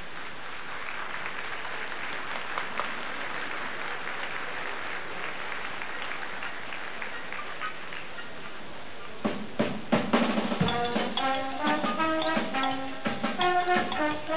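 Audience applauding for about nine seconds, then a big band with an orchestra strikes up a song's introduction: a cluster of drum strokes, then brass playing a stepping melody.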